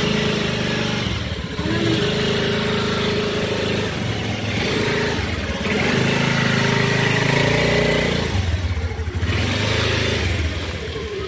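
A petrol motor scooter's small engine running as it is ridden off, its pitch rising and falling several times as the throttle is opened and eased.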